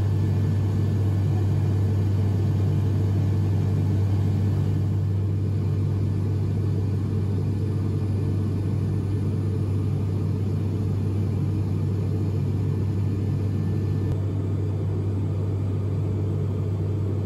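Jet airliner cabin noise in flight: a steady low rumble of engines and rushing air, heard from inside the cabin.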